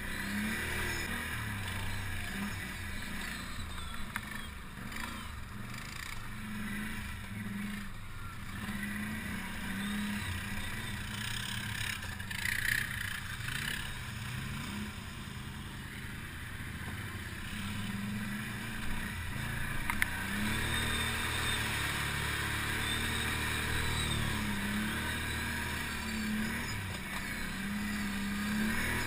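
ATV engine running as the quad rides a muddy trail, its note rising and easing off with the throttle.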